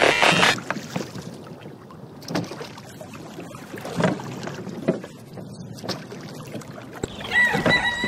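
Water splashing and sloshing against a small boat, with irregular paddle-like strokes and some wind on the microphone. Near the end a rooster crows, one long call that falls in pitch.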